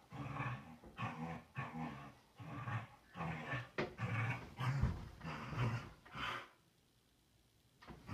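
Dog growling in repeated short bursts while tugging on a rope toy in tug-of-war play, with a sharp click and a thump partway through; the growling stops for over a second near the end.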